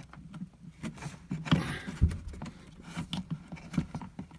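Light clicks, scrapes and a dull knock of hands working a plastic RV toilet flush valve loose, with a short scrape about one and a half seconds in.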